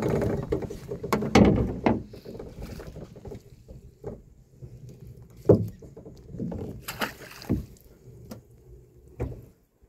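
Hoops and mesh of a fyke net knocking and scraping on the boat's metal gunwale as the trap is paid out over the side: irregular thuds and rattles, the loudest about a second and a half in and again around five and seven seconds.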